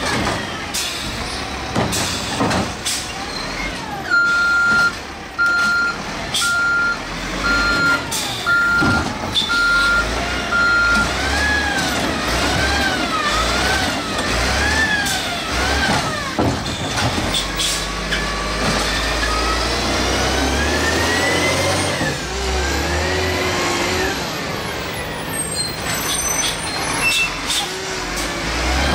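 Garbage truck's engine being revved repeatedly in neutral, its pitch climbing and falling several times, then rising slowly in long sweeps. A reversing beeper sounds about seven times, a second apart, in the first third, and sharp clicks and air hisses come in between.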